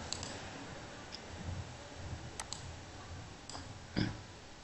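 Computer mouse clicking a few times, scattered and faint, over quiet room tone.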